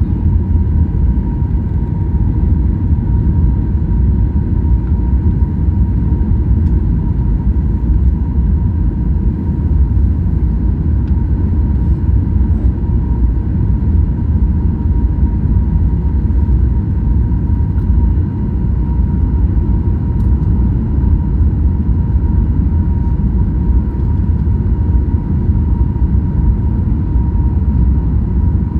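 Airplane during landing: a loud, steady low rumble with a constant thin whine over it, unchanging throughout.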